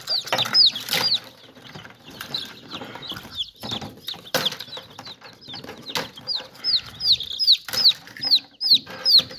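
Newly hatched chicks peeping in an incubator: a continuous string of high, falling peeps, about two to four a second, thinning out for a moment in the middle. A few sharp clicks and knocks from the plastic hatching trays being handled sound among them.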